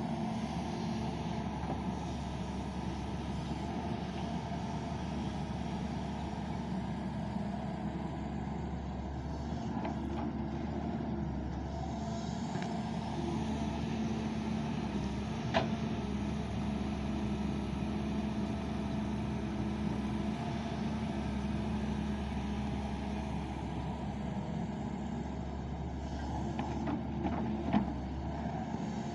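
Doosan excavator's heavy diesel engine running steadily as it works, a constant drone with a held low tone. Two sharp knocks, one about halfway through and one near the end.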